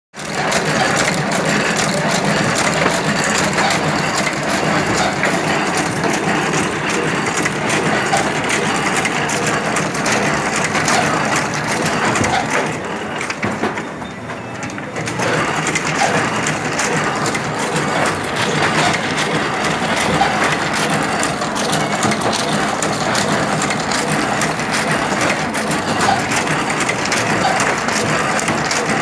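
Thread book-sewing machine running: a dense, steady mechanical clatter of rapid clicks, which eases off briefly about halfway through before picking up again.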